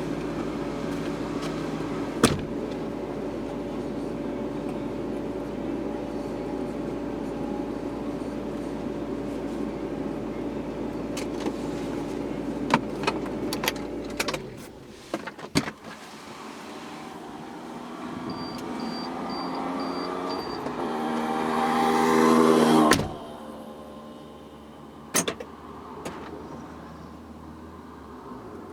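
Car engine running steadily from inside the cabin, then cutting out about halfway. After it stops, five short high beeps sound, then an electric power-window motor whines, building for a few seconds before stopping abruptly with a clunk.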